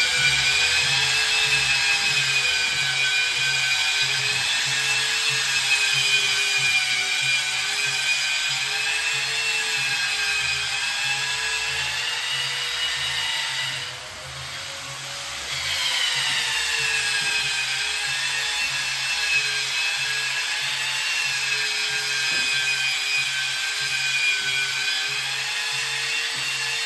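Power drywall sander whining steadily as sheetrock is sanded, its pitch wavering slightly. It stops for a moment about halfway, then starts up again.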